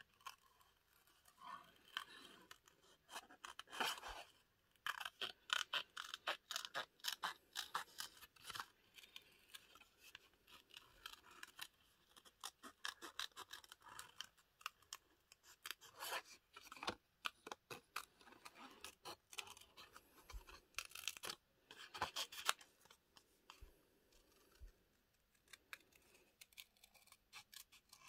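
Scissors cutting through black card stock around a butterfly shape, in runs of short, quick snips with brief pauses between them.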